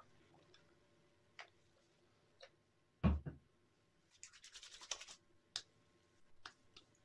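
Faint handling noises: scattered small clicks, a knock with a soft thud about three seconds in, then a quick run of little scratchy ticks a second later.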